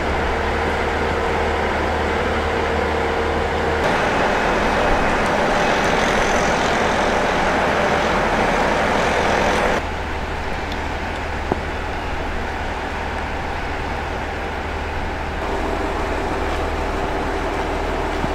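KiHa 40-series diesel railcar's engine idling at a standstill, a steady low hum, heard in a few spliced shots whose sound changes abruptly about 4, 10 and 15 seconds in.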